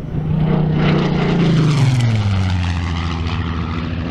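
A WWII propeller-driven fighter's piston engine making a low, fast flypast. The engine note peaks as the plane comes close, then drops clearly in pitch as it passes and goes away.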